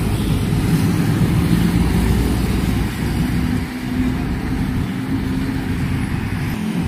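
A large diesel bus passing on the road, its engine making a loud, deep drone. A steady engine tone steps up in pitch about two and a half seconds in and holds for a few seconds.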